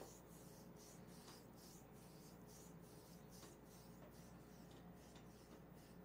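Faint rubbing of hands kneading an oiled thigh, a soft scratchy swishing that comes and goes a few times a second, over a steady low hum.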